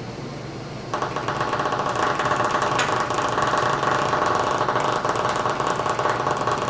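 Xbox 360 controller rumble motor, a small off-balance DC motor on battery power, starting to buzz and rattle hard against a hard surface about a second in and keeping up a fast, steady rattle.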